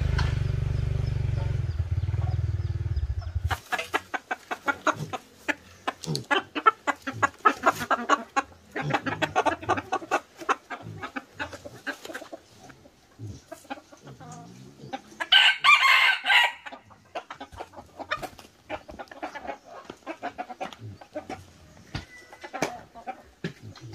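Chickens clucking in short sharp calls, with a rooster crowing once about halfway through. An engine runs for the first few seconds and stops suddenly.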